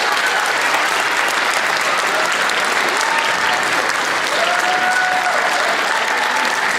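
Audience applauding steadily, with a few faint voices over the clapping.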